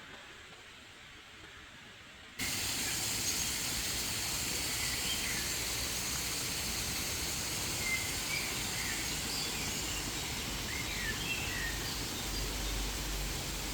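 A faint hiss, then about two seconds in a louder steady rushing hiss cuts in suddenly, with small birds chirping over it in short, scattered calls.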